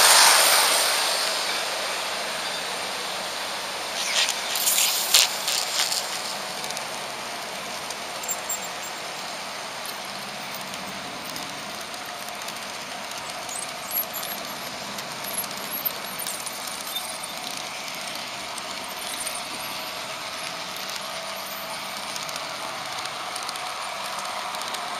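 HO-scale model train running on Märklin track: a steady whirring hiss of the motor and wheels on the rails, with a louder rush at the start that fades within about two seconds as another model train passes. A cluster of sharp clicks and rattles comes about four to six seconds in, with occasional single clicks after.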